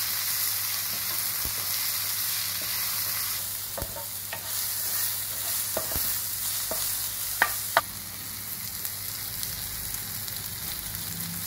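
Chopped tomatoes, onions and green chilies sizzling in oil in a ceramic-coated frying pan while a wooden spatula stirs them, the tomatoes cooking down until soft. The spatula knocks and scrapes on the pan several times, with two sharper knocks close together a little past the middle, and the sizzle eases a little as it goes.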